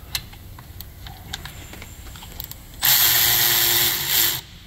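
Cordless electric ratchet backing out the lower rear brake caliper bolt. After a few light clicks, the motor runs in one steady whir for about a second and a half, starting about three seconds in.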